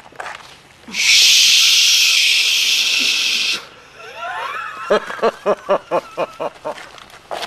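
A loud, steady hiss that starts suddenly about a second in and cuts off abruptly about two and a half seconds later. It is followed by a man's voice in short, rhythmic laugh-like bursts, about four a second.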